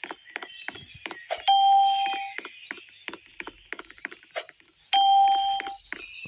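Two bell-like dings, each a single held tone of just under a second that fades away, about three and a half seconds apart, over a fast, uneven clicking that runs throughout.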